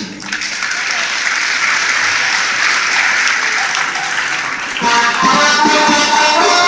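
A large crowd applauding, then music with steady held notes starts about five seconds in and plays on over the fading applause.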